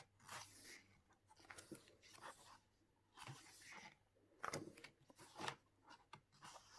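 Faint rustling and soft clicks of album photobook pages being handled and turned, in several short scrapes a second or so apart.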